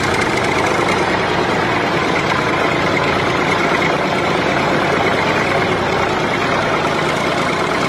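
A motor running steadily and loudly, a dense even noise without rhythm or change, from the homemade mini tractor or rice harvester.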